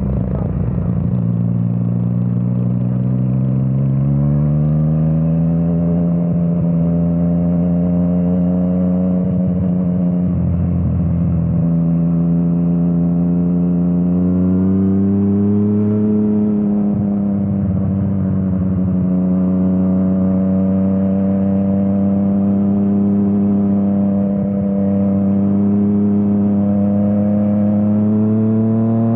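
Yamaha MT-09's three-cylinder engine through an Akrapovič exhaust, under way and pulling through the revs. The engine note climbs over the first few seconds, holds fairly steady, rises again about halfway through, dips briefly later on and climbs again near the end.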